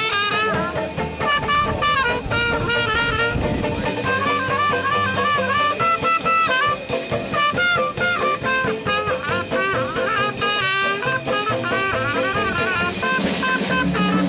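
Street jazz band playing: a trumpet leads a bending, wavering melody over a banjo and a drum kit keeping a steady beat.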